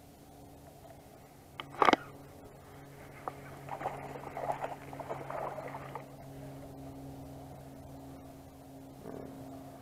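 Handling of a baitcasting rod and reel in a small fishing boat: one sharp knock about two seconds in, then a few seconds of clattering and rustling, over a steady low hum.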